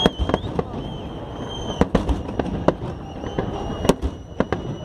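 Fireworks salute shells bursting overhead: a string of irregular sharp bangs, some close together, over a steady crackling background.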